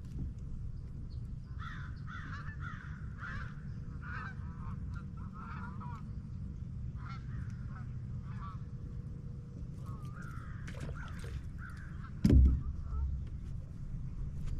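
A flock of geese honking, many short repeated calls over a steady low hum. A single sharp knock, the loudest sound, comes near the end.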